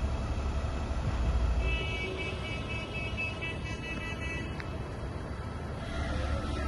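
Convoy of heavy armoured trucks driving past with a low engine rumble. About two seconds in, a horn sounds for around two and a half seconds.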